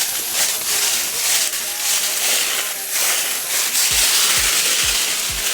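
Steady rushing noise, then a music track's deep, regular beat comes in about four seconds in, roughly two to three beats a second.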